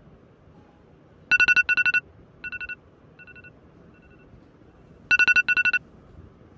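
Electronic wake-up alarm beeping in rapid groups of four high beeps. Two loud rounds sound about a second in and again about five seconds in, with fainter beeps that fade away between them.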